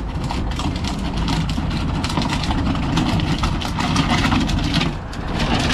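Washing machine being dragged and walked down a tarmac driveway: a steady grinding rumble with small rattles and knocks, which eases off about five seconds in.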